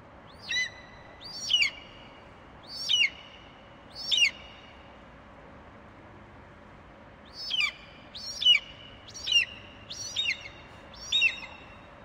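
Bald eagle calling: a string of high, thin, piping calls that sweep down in pitch. About four come in a row, then a pause of about three seconds, then about six more.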